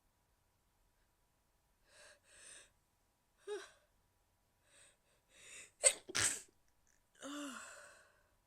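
A woman stifling a sneeze. Several short gasping inhales build over a few seconds, then the sneeze comes about six seconds in as a sharp click and a short forced burst of breath. A longer breath out with a little voice in it follows.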